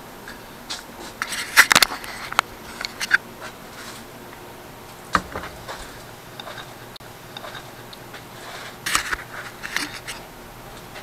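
Scattered clicks, knocks and scrapes of salvaged washing-machine parts being handled and set down, loudest in a cluster about a second and a half in and again near nine seconds.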